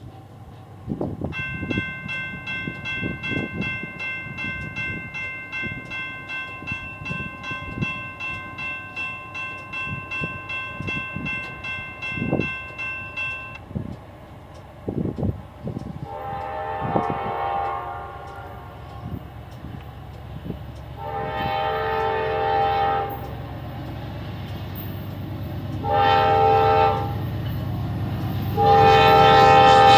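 Grade-crossing warning bell ringing rapidly for about twelve seconds, stopping once the gates are down. Then the approaching lead locomotive, a Norfolk Southern GE Dash 9-44CW, sounds its horn in the crossing signal: long, long, short, long, each blast louder as the train nears. Wind buffets the microphone throughout.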